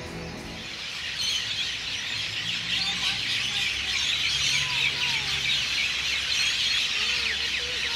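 A dense chorus of many birds chirping and calling at dusk, with a few slower gliding calls among them, starting about a second in after a piece of music fades.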